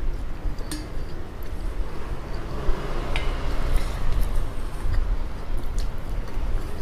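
Eating noodles: chewing, and wooden chopsticks and a wooden spoon stirring ramyun in a stainless steel bowl, with a few light clicks, over a steady low rumble.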